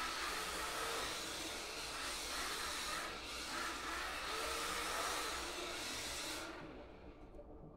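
Micro RC drift cars' small electric motors whining, the pitch rising and falling with throttle, over a steady hiss. The sound fades out about six and a half seconds in.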